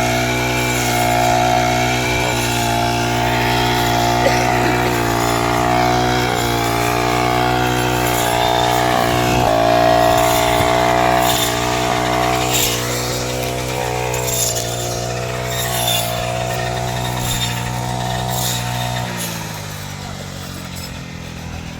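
Engine of a wheat-harvesting machine running steadily under load; about 19 seconds in its low note drops away and the sound becomes quieter.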